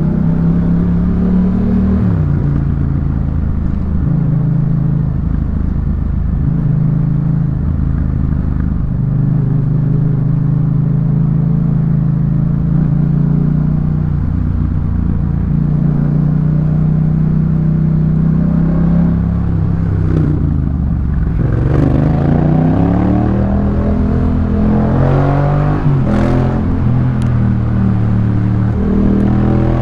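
Yamaha MT-07's 689 cc parallel-twin engine running through a Jeskap K4 full aftermarket exhaust while riding: steady engine note for most of the stretch, then the revs drop about two-thirds of the way through and climb again in a few rising pulls near the end.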